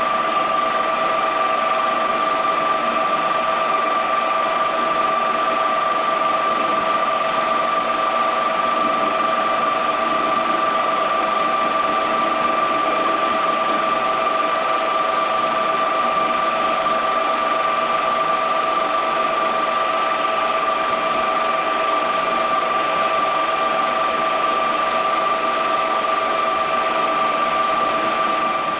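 A machine running steadily with a constant high whine over a mechanical hum.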